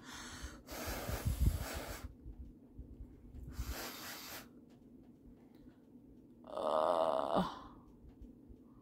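Breath blown through pursed lips onto the glue of a false eyelash strip, twice: a longer blow of about two seconds, then a shorter one about three and a half seconds in. Near the end comes a brief hummed voice sound that falls in pitch.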